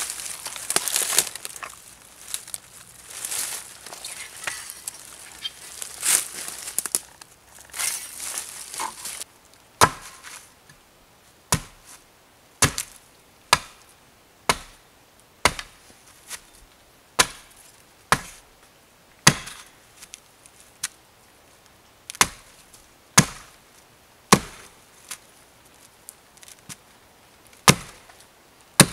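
Rustling and crackling in dry leaf litter and brush for the first several seconds, then a hatchet chopping into the base of a thin standing sapling, sharp single strokes about one a second.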